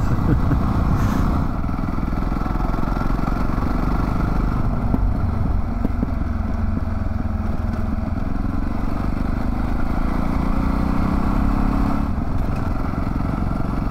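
Adventure motorcycle engine running steadily while ridden along a dirt trail, with road noise underneath; the engine pitch climbs gradually for a few seconds past the middle, then drops back near the end.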